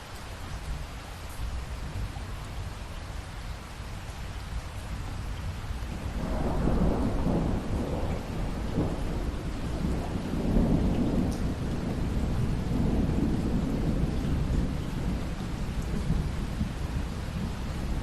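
Steady rain with a long rolling peal of thunder that builds about a third of the way in and rumbles on to the end.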